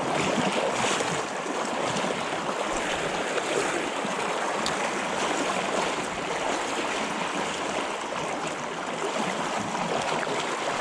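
River current rushing steadily, an even wash of flowing water close by.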